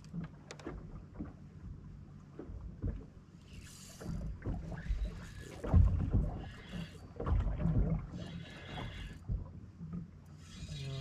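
Steady low hum of a bow-mounted electric trolling motor on a bass boat, with scattered knocks and scuffs on the deck and several short hissing rushes while a fish is fought on rod and reel.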